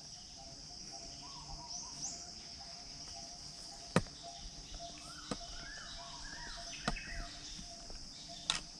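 Faint outdoor ambience: a steady high-pitched drone of insects with scattered bird chirps, several short arched calls in a row past the middle, and a few sharp clicks or taps.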